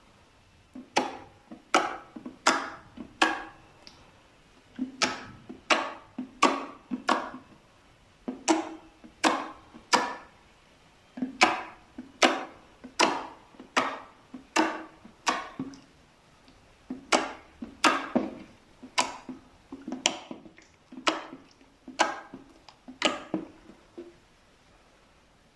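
Slime being pressed and played with by hand, giving sharp popping clicks about once or twice a second, in runs of four or five with short pauses between.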